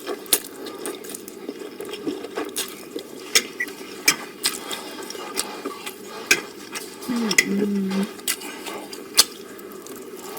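Irregular clicks and clinks of eating utensils against dishes during a mukbang meal, with a brief low hum about seven seconds in.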